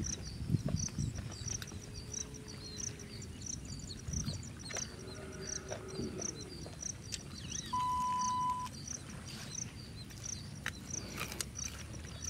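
Rural outdoor ambience: a regular high chirping, about two chirps a second, over low rustling noise. Just past the middle, a steady high beep lasts about a second and is the loudest sound.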